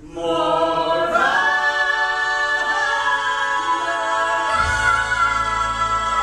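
A small mixed group of singers coming in together on loud, long held notes in close harmony. A deep, steady bass note joins under the voices about two-thirds of the way through.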